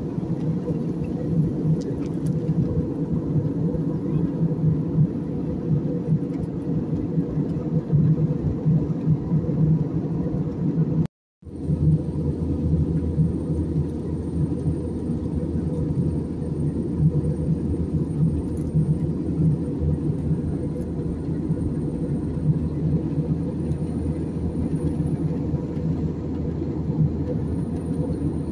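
Steady rumble of a jet airliner's engines and airflow heard inside the passenger cabin. About eleven seconds in the sound cuts out for a split second, then resumes a little deeper.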